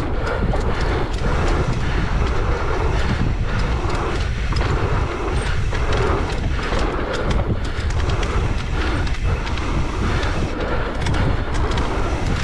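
Mountain bike riding fast down a dirt trail: a steady rumble of tyres and rushing air, with small rattling clicks from the bike over bumps.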